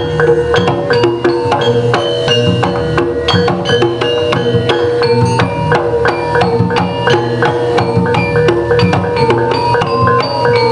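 A jaranan gamelan ensemble playing live: hand drums and struck, ringing metal percussion in a busy, fast, continuous rhythm.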